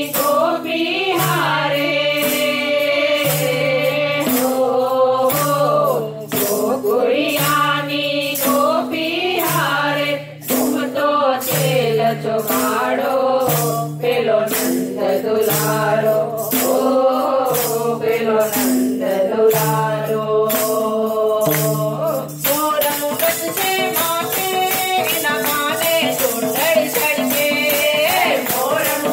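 A group of women singing a Gujarati devotional ras song together, keeping the beat with handheld wooden kartal clappers that click and jingle on each beat. The clapping gets faster and denser about three-quarters of the way through.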